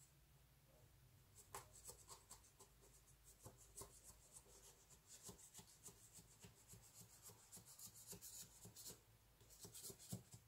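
Faint scraping strokes and light clicks of a knife run around the inside of an adjustable cake ring to free the chilled cream cake from it.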